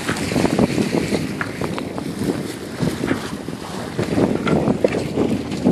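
Wind buffeting the microphone, uneven and gusting, over water rushing and splashing along the hull of a sailboat moving through swells.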